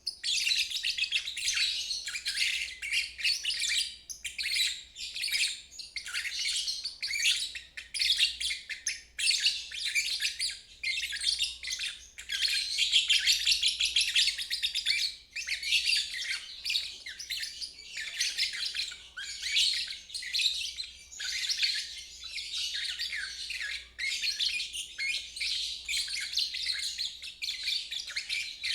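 Lovebird singing its long 'ngeriwik' song: a rapid, high-pitched chattering trill that goes on almost without a pause, broken only by brief gaps.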